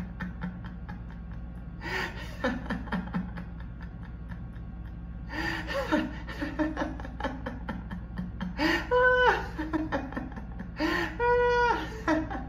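High-pitched laughter coming in about four bursts, over a steady low hum.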